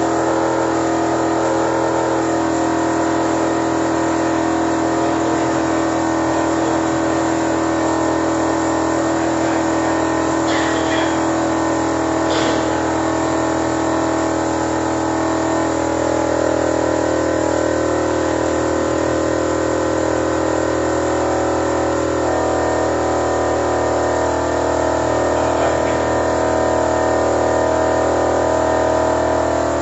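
Toyota Innova engine running steadily with the hood open during an engine carbon-cleaning treatment. Two faint clicks come a little before the middle.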